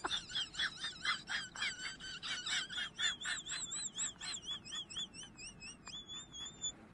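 A dog whining in short high-pitched notes, about four a second, that turn into a wavering whine and end in one held note near the end.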